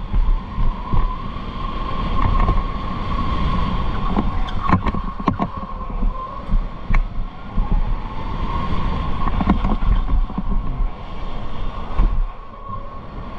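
Electric go-kart motor whining, its pitch rising and falling as the kart speeds up and slows through the corners. Wind buffets the microphone throughout, and a few sharp clicks come near the middle and again later.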